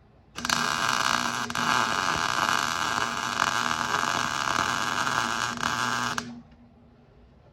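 MIG welder arc laying a bead: a steady crackling sizzle with a low hum that starts abruptly about half a second in and cuts off sharply after about six seconds.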